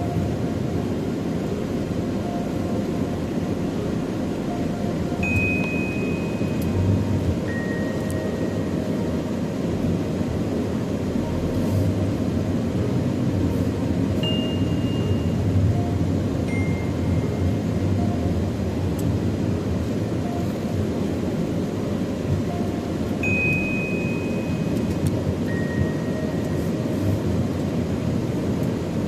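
Steady road and engine noise from inside a moving car, under soft background music of sparse chime-like notes: a higher note, then a lower one about two seconds later, the pair repeating every nine seconds or so.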